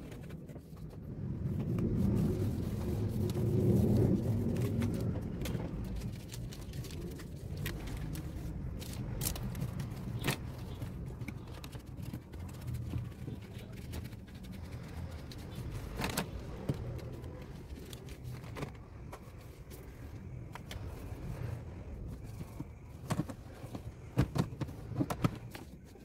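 Steady low rumble, swelling about two to five seconds in, with scattered knocks and clicks and a cluster of them near the end as a hand wipes and handles the plastic inside of a refrigerator.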